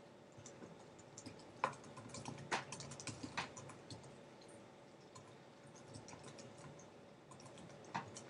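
Faint typing on a computer keyboard: irregular key clicks in short runs, with a lull in the middle and a few more keystrokes near the end.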